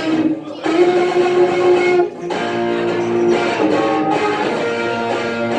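Live band music led by guitars: strummed guitar chords under a melody of held notes, the closing passage of a pop ballad cover.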